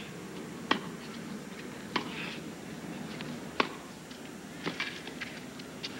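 Tennis ball struck by rackets during a baseline rally: three sharp strikes roughly a second and a half apart, then several lighter clicks, over a low murmur from the crowd.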